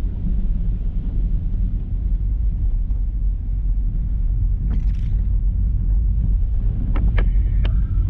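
Car driving on the road: a steady low rumble of engine and road noise. There is a brief hiss about five seconds in, and a few sharp clicks with a short high tone near the end.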